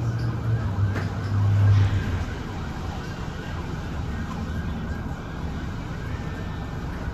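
Low rumble of city traffic, loudest in the first two seconds, then settling into a steady, quieter background hum.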